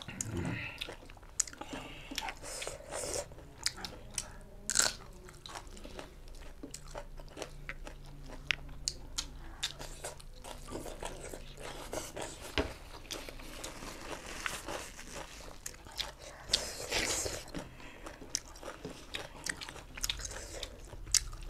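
A person eating close to the microphone: chewing with many irregular crunches and wet clicks, a few of them sharply louder.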